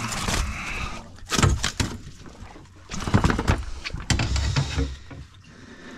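Irregular knocks and clattering, with sharp thumps about one and a half, three and four seconds in, over a low rumble.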